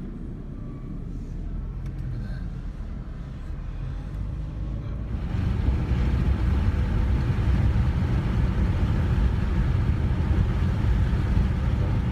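A car driving, with steady low road and engine rumble that grows louder about five seconds in.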